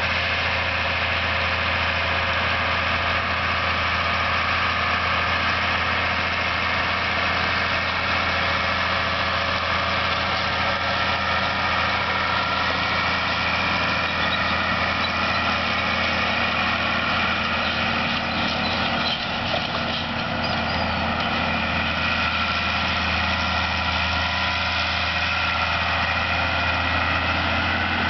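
Ford TW-10 tractor's six-cylinder diesel engine running steadily under load while pulling a no-till grain drill.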